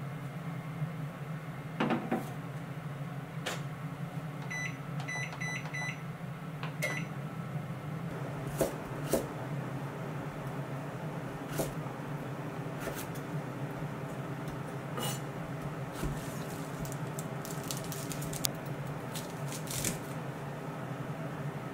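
Microwave oven door knocked shut, then a quick run of short high beeps and one more beep as the cooking time is keyed in. After that a kitchen knife chops carrot and trims a turnip on a wooden cutting board in scattered knocks and clicks, over a steady low hum.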